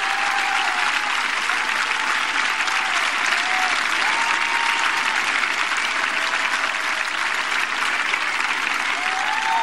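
Large studio audience applauding, steady and sustained.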